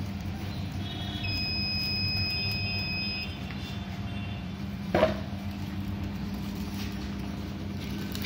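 Continuous band sealer running, its conveyor motor giving a steady hum. A high, steady tone of several pitches sounds for about two seconds near the start, and a single sharp knock comes about 5 seconds in.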